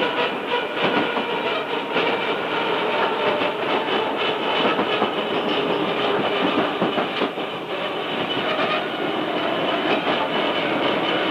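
Tobu 5050-series electric train running, its nose-suspended traction motors and gears giving a steady whine over knocks of the wheels on the rail. The recording is from a tape recorder's built-in mic and is slightly distorted.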